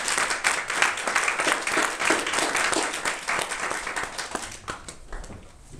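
Audience applauding, dense clapping that thins out and dies away near the end.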